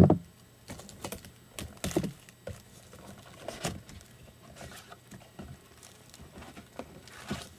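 Trading-card boxes and wrappers being handled and opened: a loud knock at the start, then irregular clicks, taps and crinkles of cardboard and plastic.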